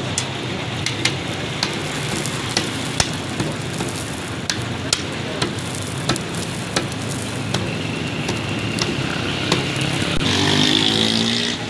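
Egg parathas sizzling in oil on a large flat street-stall griddle (tawa), with repeated sharp clicks of a metal spatula striking the griddle as the cook scores the parathas. A vehicle passes near the end.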